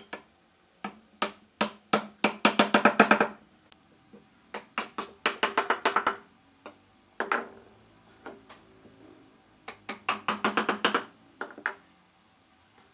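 Hammering on wood: separate knocks that build into quick runs of blows, three fast bursts in all.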